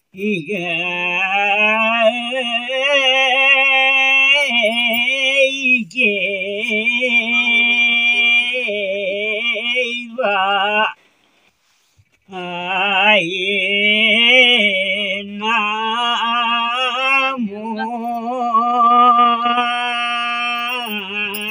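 An elderly man singing a Nepali village folk song without accompaniment, in long held, wavering notes, with a pause for breath about eleven seconds in.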